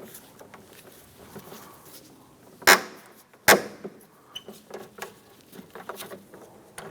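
Phillips screwdriver working the screw out of an interior door handle: light scraping and small ticks, with two sharp clicks about two and a half and three and a half seconds in.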